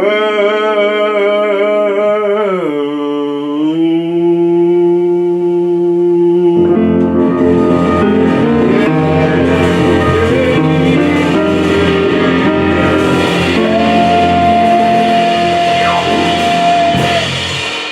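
A singer holds the word "world" with vibrato, slides down and holds a lower note; about six and a half seconds in, a band with bass and drums comes in loudly and plays on, with a long high held note near the end.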